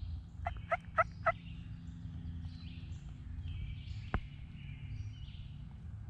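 Turkey calling: four quick, loud notes about a quarter second apart. Songbirds sing in the background, and there is a single sharp click about four seconds in.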